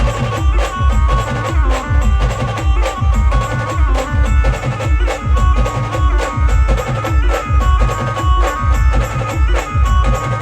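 Loud live band music: heavy, steady drum beats with sharp percussion strokes under a sustained melody line.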